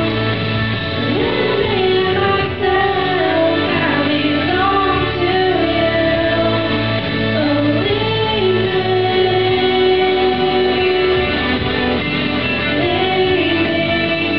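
Two young girls singing a melody into handheld microphones over instrumental accompaniment.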